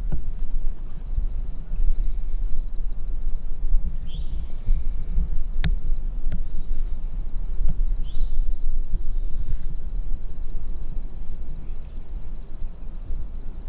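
Birds chirping and calling here and there over a steady low rumble on the microphone, with two sharp clicks a little before and just after the midpoint.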